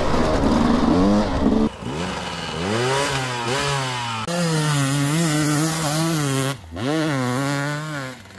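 Dirt bike engines revving, the pitch climbing and wavering with the throttle. The sound changes abruptly a few times as it switches between bikes.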